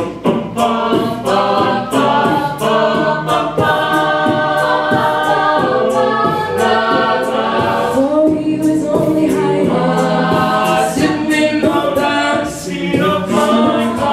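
A cappella group singing in close harmony behind a female lead vocal, with vocal percussion keeping a steady beat under the voices.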